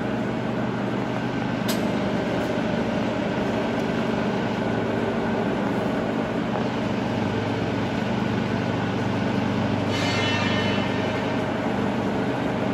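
Sachman bed milling machine running its vertical feed, the spindle head travelling slowly on its power feed with a steady motor-and-gearbox drone. A short click sounds about two seconds in and a brief hiss about ten seconds in.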